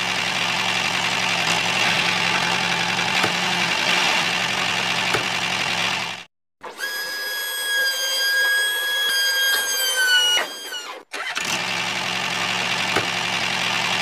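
Model tractor running with a steady engine-like hum that cuts off abruptly about six seconds in. A steady high whine follows while the trolley tips its load, sliding down in pitch just before it stops. The engine hum resumes about eleven seconds in.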